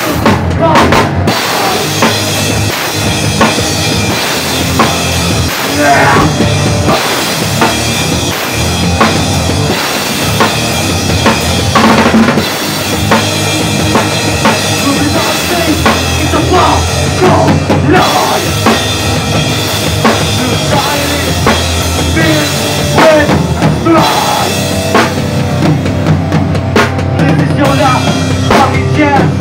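A live band playing loudly: a drum kit with bass drum, snare and cymbals driving a steady beat under electric guitars.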